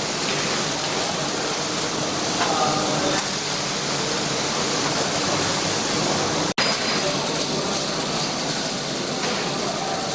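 Steady welding-shop noise: a continuous hiss with machinery running, broken by a momentary dropout about six and a half seconds in.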